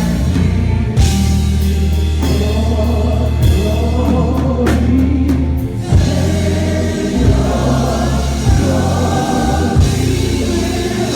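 Live gospel worship music: a choir singing over a band, with sustained bass notes and drum and cymbal hits.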